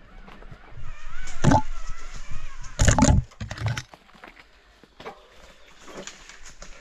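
Mountain bike rolling down a rough trail, with clattering knocks as the tyres and frame hit rocks and roots. The two loudest knocks come about a second and a half and about three seconds in. A wavering high tone sounds for a second or two near the start.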